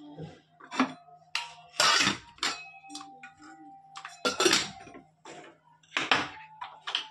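Stainless steel cookware knocking and clinking: several sharp metallic knocks, some with a brief ring, as corn kernels are scraped from a steel plate into a steel pot and the lid is set on.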